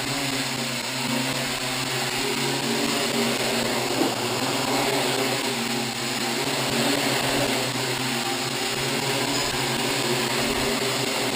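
DJI F450 quadcopter hovering: four electric motors and propellers whirring steadily, the pitch wavering slightly as the drone drifts up and down.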